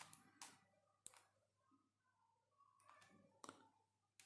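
Faint clicks of a 5x5x5 Ultramorphix puzzle's plastic layers being turned by hand, a few separate clicks with soft handling rustle between them.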